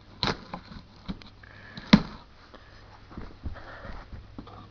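Cardboard shipping box being cut open and handled: scattered knocks and taps, with two sharper thumps about a quarter second and two seconds in, and short scraping and rustling in between.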